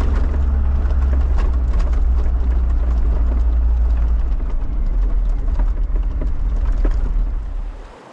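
Bucher Duro 4x4 expedition truck driving slowly over a rough, stony track, heard inside the cab: a loud, steady deep drone from the drivetrain and road, with frequent knocks and rattles as the wheels go over loose rocks. The sound drops away abruptly just before the end.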